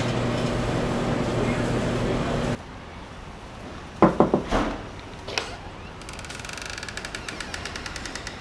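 A steady low hum with background noise that cuts off suddenly, followed by a quieter stretch with a quick cluster of sharp knocks and clicks and one more knock a little later.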